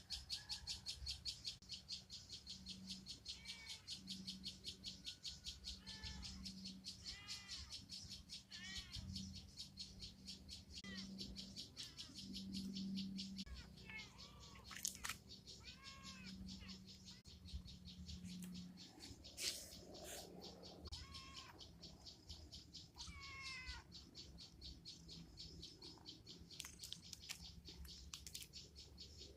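Short, high animal calls repeated every second or two over a fast, steady high ticking.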